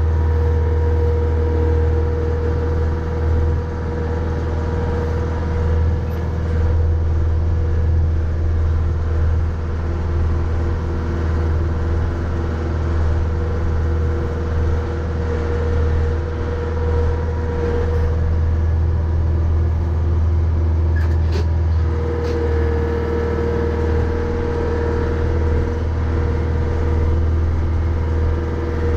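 Mahindra 3550 tractor's 50 hp diesel engine running steadily under load, with a steady whine above the engine drone that wavers slightly in pitch.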